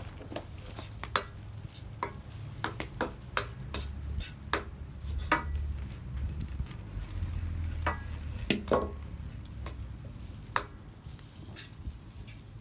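A utensil clinking and scraping against a pan as fried rice is stirred over a campfire, with irregular sharp clicks over a low sizzle.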